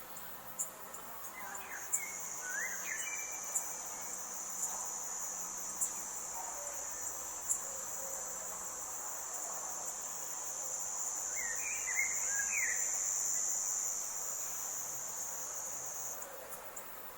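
Forest ambience: an insect such as a cricket trilling steadily in one high, thin band, starting about two seconds in and stopping shortly before the end, over occasional sharp ticks. A bird gives brief clusters of chirps twice.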